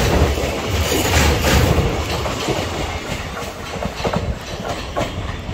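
Passenger-train coach wheels rolling slowly over a steel girder bridge: a low rumble with irregular clacks at the rail joints, dying away over the last few seconds as the rear coaches pass.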